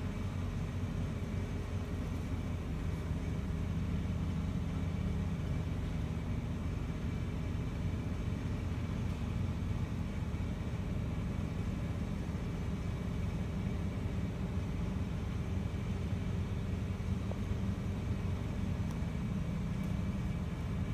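A steady low rumble with a faint hum, unchanging throughout, with no distinct events.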